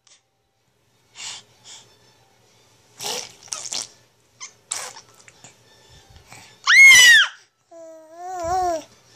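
Infant vocalising: a few short breathy, giggly sounds, then one loud, high-pitched happy scream that rises and falls about seven seconds in, followed by a lower, wavering coo.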